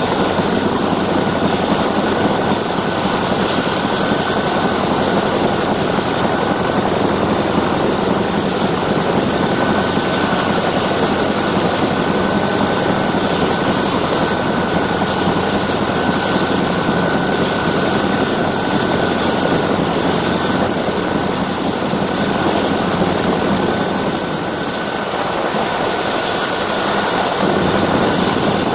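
CH-47D Chinook tandem-rotor helicopter heard from on top of its fuselage: loud, steady rotor and turbine noise with a steady high-pitched whine over it.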